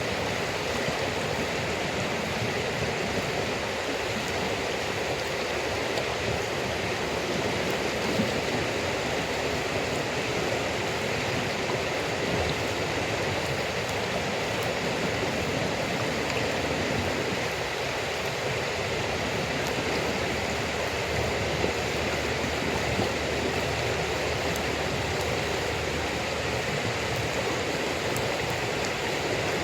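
Steady rushing of running water, with a few faint crackles from a campfire of damp wood.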